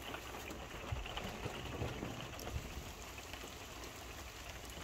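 Faint, steady hiss of light rain, with scattered small drop ticks.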